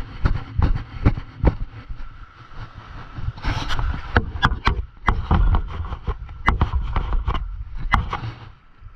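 Rapid, irregular sharp clicks and knocks over a low rumble: handling noise from a body-worn camera jostled as a surf angler moves with his rod.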